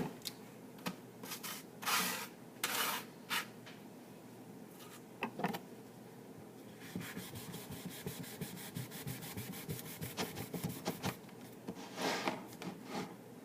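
Knife slicing through a potato on a wooden cutting board: a few separate strokes at first, then a quick, even run of several cuts a second for a few seconds.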